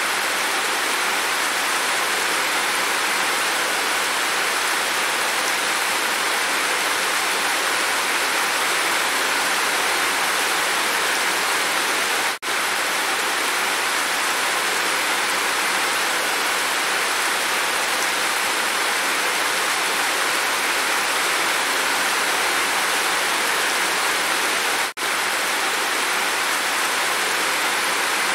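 Heavy rain falling steadily, water pouring off a roof eave. The sound drops out for an instant about twelve seconds in and again near the end.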